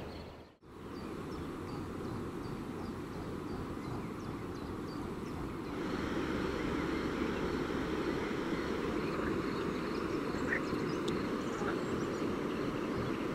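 Evening riverbank ambience: a steady low background hum, with a few faint short animal calls in the second half.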